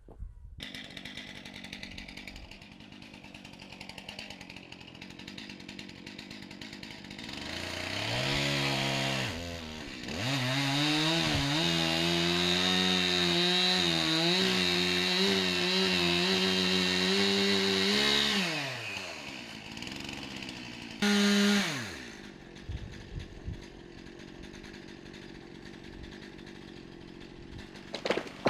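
Stihl two-stroke chainsaw idling, then revved up and held at high revs for about eight seconds with its pitch wavering as it cuts into a dead tree. It drops back to idle, gives one short rev a few seconds later, and idles again.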